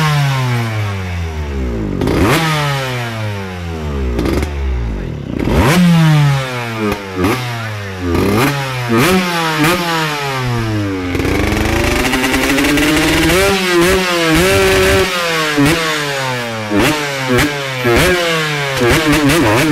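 Recorded motorcycle engines revving over and over, each rev falling away in pitch, with wavering revving in the second half; the dance's soundtrack intro played over the theatre sound system.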